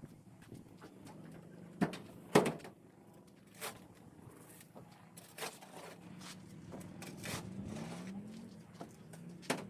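A few sharp knocks, two of them close together about two seconds in, over a low steady hum.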